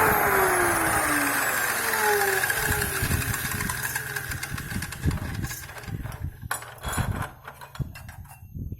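Mini cut-off saw with a 180 mm blade winding down after being switched off: its whine falls in pitch over the first two or three seconds. Scattered clicks and knocks follow as it comes to rest.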